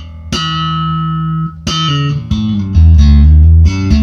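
Electric bass guitar played through a Zipper optical compressor pedal with the compression turned back: a short phrase of plucked notes, one left ringing about a second, then a loud low note held near the end.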